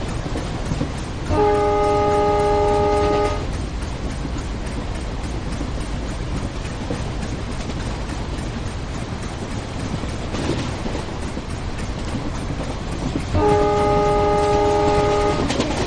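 Train horn sounding two long blasts of about two seconds each, one near the start and one near the end, over the steady noise of a running train.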